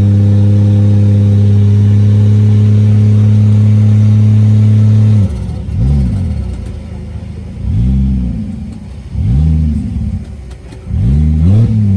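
Off-road 4x4 truck engine held at steady high revs for about five seconds. It then drops and is revved up and down four times in quick blips.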